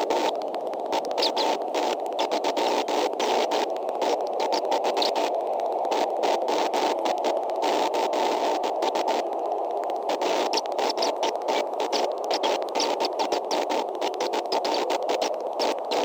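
Steady hiss with a continual fine crackle from the eagle nest camera's outdoor microphone feed.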